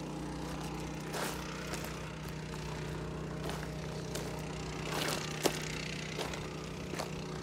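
A steady engine hum, with a few scattered clicks over it.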